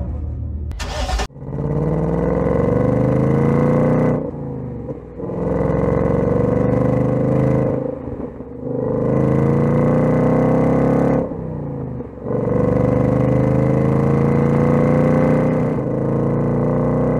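2024 Ford Mustang's 5.0-litre V8 accelerating hard in several pulls, its pitch climbing through each one, with short dips in pitch and loudness between pulls, as at gear changes. A short burst of noise comes about a second in.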